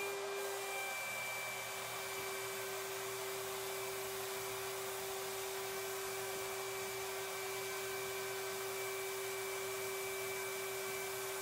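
HVLP paint sprayer running steadily while spraying primer: a constant hiss of air with a steady, even-pitched whine under it.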